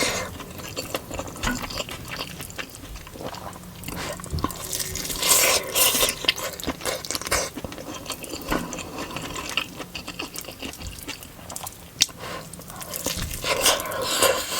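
Close-miked eating: wet chewing, lip smacks and small mouth clicks, with a few louder moist bursts of chewing partway through and near the end.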